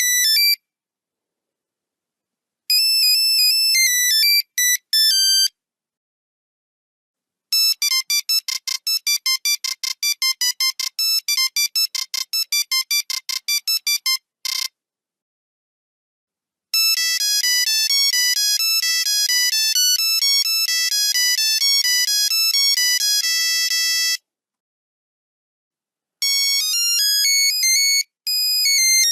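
Nokia 3310 monophonic ringtones played one after another: short, high, buzzy beeping melodies with a gap of silence of about two seconds between tunes. The tail of one tune ends at the start, then four more begin, one of them a fast run of rapid staccato beeps.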